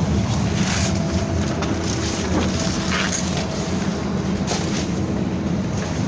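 Cabin noise of a BKM-321 trolleybus under way: the steady hum of the running trolleybus and its road noise, with a few brief rattles.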